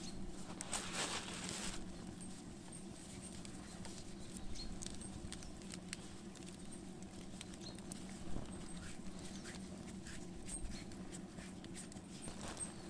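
Faint rustling of a plastic bag as a dry powder is shaken out of it into a bowl, loudest about a second in, with scattered light clicks and ticks throughout.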